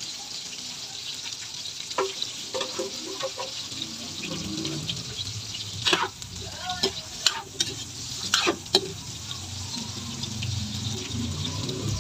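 Pork ears and sliced onions sizzling in oil in an aluminium wok while a metal ladle stirs them, scraping and knocking against the pan several times, most of the knocks between about six and nine seconds in.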